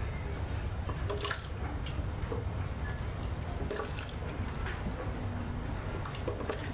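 Thick soup being ladled from a pot into a blender jug: liquid splashing and dripping, with a few light clinks of the ladle against the pot and jug, over a steady low hum.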